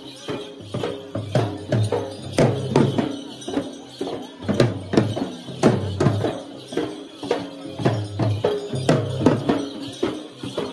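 Drums beaten hard in a fast, driving rhythm, with a steady metallic jingle over the strokes.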